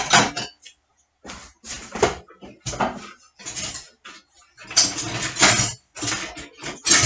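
Dishes and kitchen things being handled, clattering in short irregular bursts with brief pauses between them.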